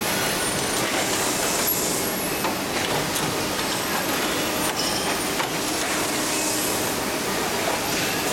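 Toe lasting machine at work: steady mechanical noise with two longer spells of air hiss and a few sharp clicks as its pneumatic parts move.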